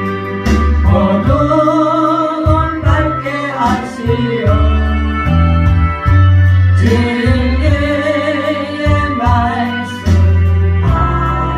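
A Christian gospel song sung with instrumental accompaniment: long held sung notes over a strong bass line.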